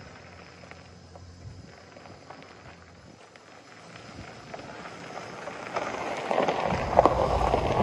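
2005 Chevy Silverado 1500 pickup rolling in on a gravel driveway, its tyres crunching over the stones along with the engine, growing louder from about halfway and loudest near the end.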